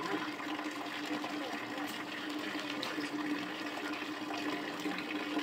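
Water running steadily from an open tap spout and splashing onto a concrete washing slab, with wet clothes being scrubbed in it by hand.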